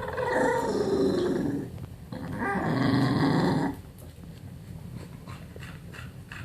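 English bulldog making two long vocal noises, each about a second and a half with a short gap between them, the first falling in pitch. Softer noises follow.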